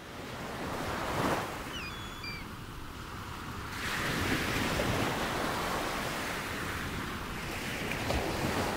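Rushing sea water churned up in a cruise ship's wake, with wind buffeting the microphone. A few faint high chirps come about two seconds in.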